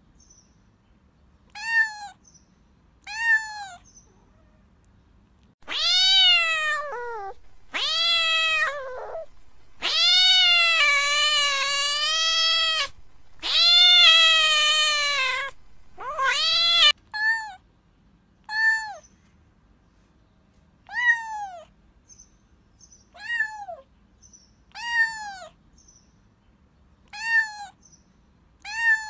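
Domestic cat meowing over and over. Short falling meows come every second or two, with a run of long, drawn-out, louder meows in the middle.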